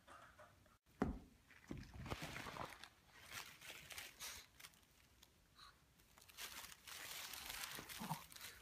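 Tissue paper crinkling and rustling as a small dog paws and noses it, after a few scattered scuffs. The crinkling becomes steady from about six seconds in.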